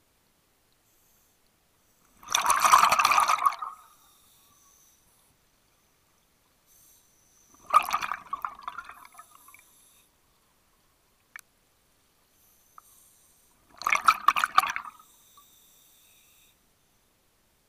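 A scuba diver's exhaled breath bubbling out of the regulator exhaust underwater, in three bursts of one to two seconds each, about six seconds apart, with quiet between breaths.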